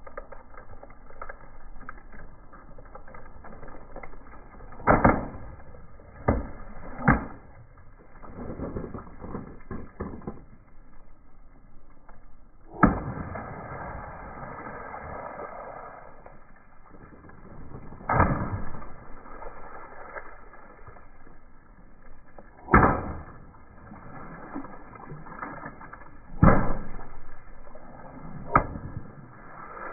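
Water-filled long twisting balloons bursting one after another under a slowly rolling car tyre: about eight sharp pops. One burst is followed by a few seconds of water splashing out.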